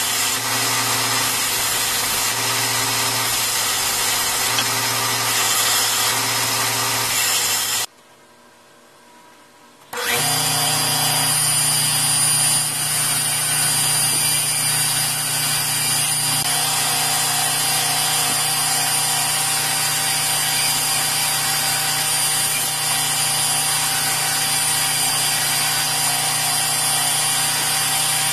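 Belt grinder running with a steel knife blade pressed against the belt, grinding steadily. The sound drops away for about two seconds roughly a third of the way in, then the grinding resumes with a slightly different hum.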